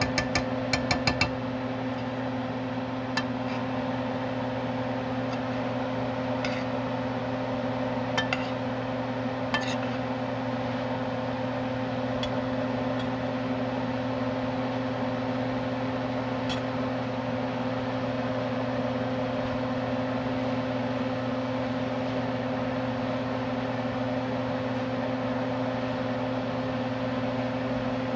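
Steady hum of a running kitchen appliance, fan-like, with a few sharp clinks of utensils: a quick run of them about a second in, then single ones now and then.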